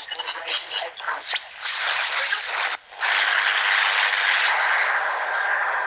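Receiver audio from a remotely operated amateur radio transceiver: a garbled, broken voice on the band for a few seconds, a brief dropout about three seconds in, then a steady hiss of band noise.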